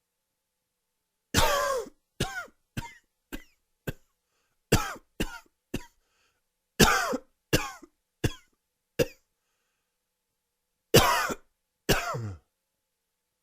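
A man's dry, wheezy coughing fit: about fifteen coughs in four bunches, with silent pauses between, the last two near the end. The uploader puts the coughing down to allergies.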